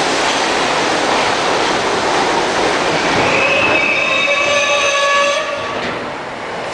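R42 subway train pulling into a station: loud rolling rumble, then from about three seconds in several high squeal tones as it brakes, ending with a drop in level as the train comes to a stop a little after five seconds.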